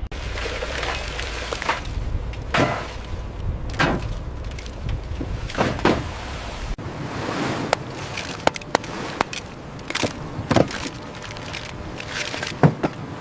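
Irregular knocks and clatter of hard objects striking on a crab boat's deck, about a dozen over several seconds, over a low rumble that cuts off about halfway through.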